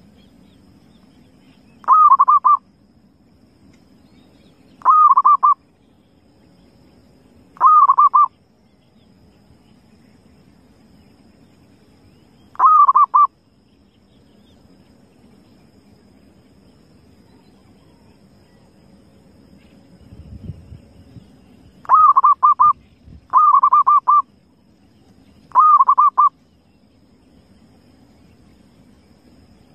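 Zebra dove (perkutut) calling: seven short bursts of rapid cooing notes, spaced unevenly, with a long pause in the middle before three calls in quick succession.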